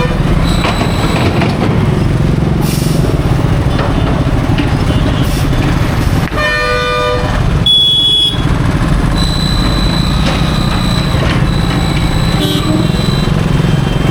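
Steady low rumble of highway traffic and heavy vehicle engines. A vehicle horn honks about six seconds in, followed by a shorter, higher horn blast about a second later.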